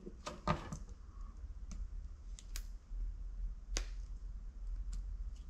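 Scattered small clicks and taps as a Hope Tech brake lever assembly is handled and a retaining clip is pushed into place by hand, the sharpest click about four seconds in. A low steady hum runs underneath.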